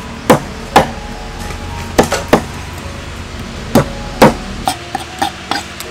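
Knife chopping fish on a wooden chopping board: about ten sharp knocks at an uneven pace, the last few softer and quicker.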